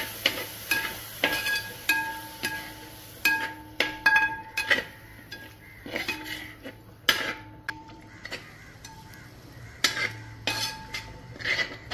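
Metal ladle stirring thick masala with yogurt in an aluminium pot, knocking and scraping against the pot's sides and bottom at an uneven pace, many knocks leaving a short metallic ring.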